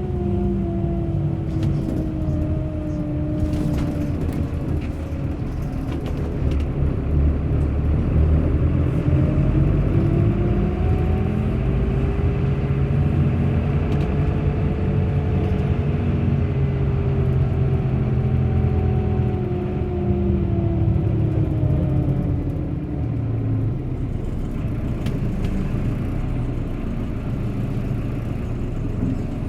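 Bus running on the road: a low engine rumble with a whine that drops in pitch over the first few seconds, climbs through the middle and falls away again.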